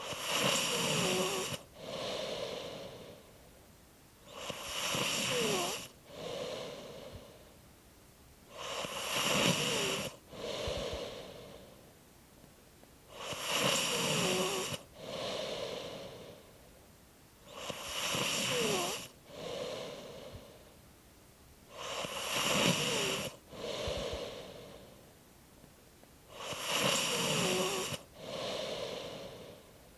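Snoring in a slow, even rhythm, about one breath every four and a half seconds, seven in all. Each breath has a louder rasping part carrying a quiet squeak, a short falling whistle, followed by a softer breath out.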